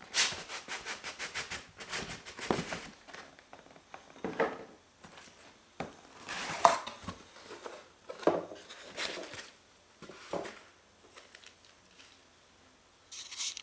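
Cardboard packaging of a diecast model airliner being opened by hand: a quick run of scraping strokes at first, then scattered rubs and rustles of cardboard and the foam insert being handled, fading to quiet near the end.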